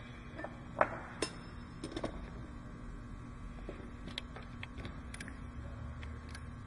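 Scattered metal clinks and light ticks from a wrench and socket working on the bolts of a wire-rope combination clamp and thimble as they are tightened: a few sharp clicks early on, then a quick run of small ticks about four seconds in, over a steady low hum.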